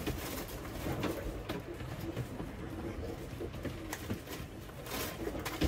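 Sailboat under way: a steady rush and rumble of water and motion with frequent small clicks and knocks throughout.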